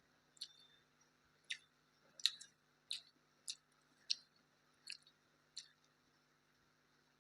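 A person chewing with their mouth open, making short wet clicks and smacks about every half second to second, over a faint steady low hum.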